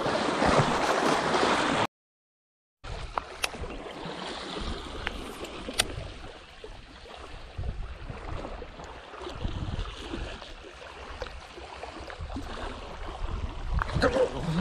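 Small sea waves washing and splashing against boulders at the waterline, loud at first. The sound drops out completely for about a second, then comes back as quieter lapping water with a few sharp clicks here and there.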